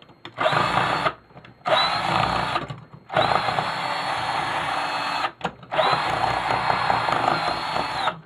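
Power drill run in four bursts, each spinning up and cutting off, the later two lasting about two seconds each, while a plastic part is being taken off a garage door opener.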